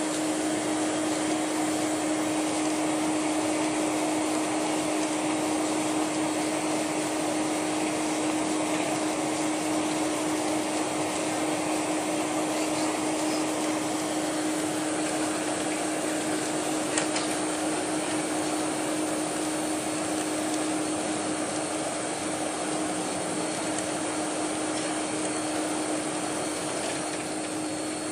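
Inside the cabin of a Boeing 747-400 during taxi: the steady rushing hum of its GE CF6-80C2B1F turbofans at taxi power, mixed with cabin air, with one steady low drone running under it.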